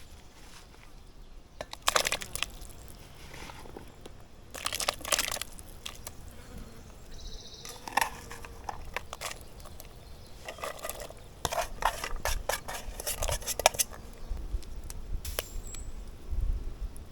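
Irregular bursts of clattering, clinking and crinkling as camp cooking gear and packaging are handled. A long run of these comes from about ten seconds in to nearly fourteen.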